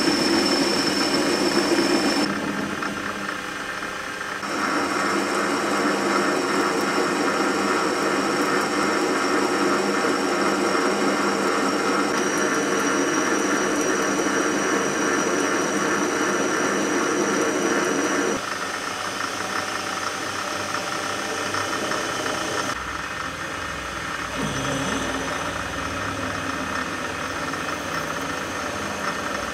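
A small metal lathe runs with a steady high whine while a turning tool cuts a metal shaft. The sound changes abruptly between takes, and near the end a twist drill bores into the end of the spinning shaft.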